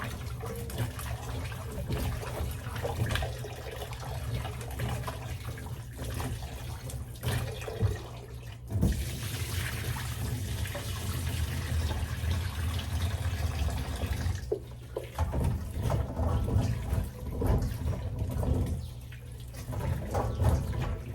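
Kitchen tap running into a sink while cut cassava pieces are washed by hand, with irregular splashing of water.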